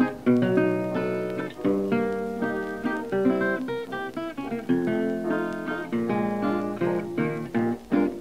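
Background music: acoustic guitar playing, plucked and strummed notes.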